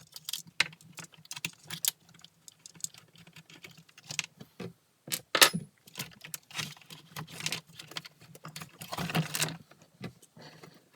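Irregular clicks, clacks and rattles of hard plastic and metal parts being handled while working on a personal watercraft, with a busier stretch of clattering near the end. A faint steady low hum runs underneath.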